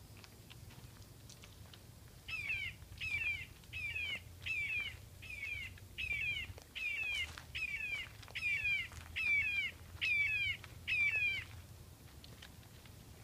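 Red-shouldered hawk calling: a series of about thirteen loud, downslurred "kee-ah" screams, about one and a half a second, starting about two seconds in and stopping near the end.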